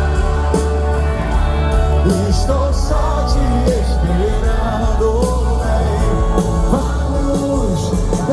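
Live gospel band playing loud, with heavy sustained bass, drums with regular cymbal hits, and a lead vocal singing a melody over it.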